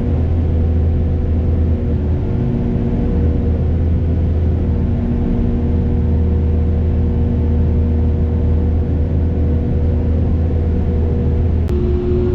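Heavy construction machine's engine running steadily, a loud low drone with a steady hum over it. A sharp click near the end, and then the hum's pitch changes.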